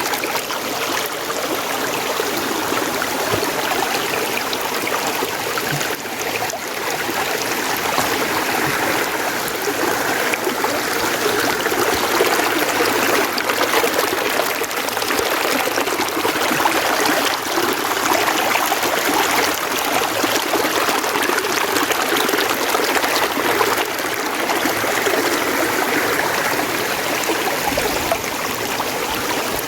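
Mountain stream running: a steady rush and trickle of water that swells gently in level now and then.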